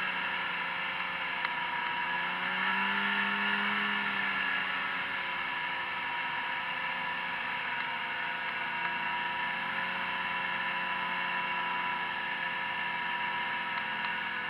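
Snowmobile engine running at cruising speed along a trail, its pitch rising and easing slightly in the first few seconds, then holding steady.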